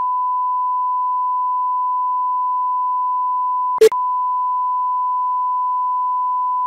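A steady 1000 Hz sine test tone, played first in the left speaker and then in the right. A little under four seconds in, it breaks off for a moment with a short loud blip as it switches sides.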